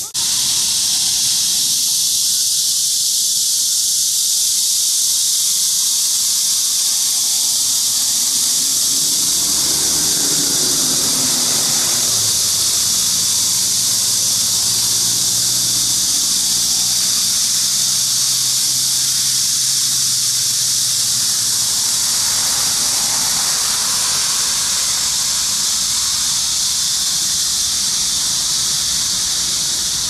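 Korean horse cicadas (Cryptotympana dubia) buzzing in one steady, unbroken high-pitched drone.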